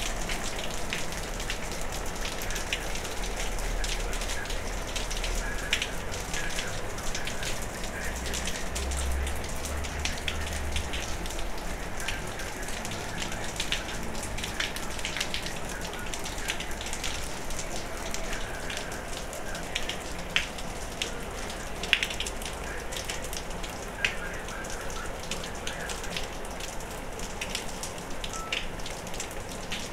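Heavy rain falling steadily, with many close drops tapping on nearby surfaces and a few sharper taps in the second half. A low rumble sits under the rain for roughly the first ten seconds.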